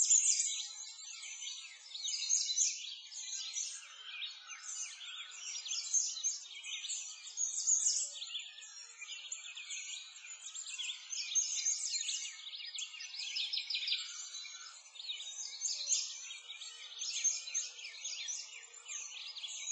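Dense chorus of many small birds chirping and singing all at once, a continuous stream of quick high calls with no low sounds beneath.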